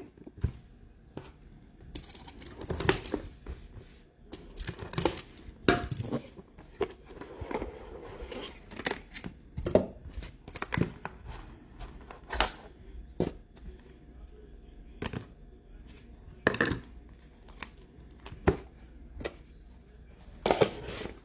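Foil trading-card pack wrappers tearing and crinkling, with cards being handled in short, irregular rustles and clicks.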